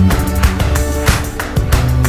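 Background music with a steady beat, with plucked guitar and bass.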